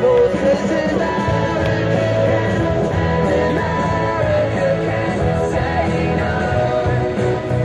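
Background rock music with singing, playing steadily.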